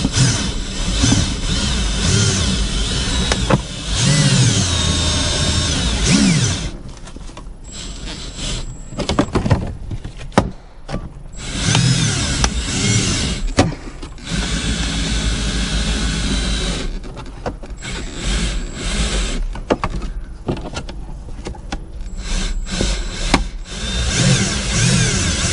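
Power windshield cut-out tool running in stop-start runs as it cuts through the urethane bead holding the old windshield. Its motor whine rises and falls in pitch as the load changes, with several short pauses.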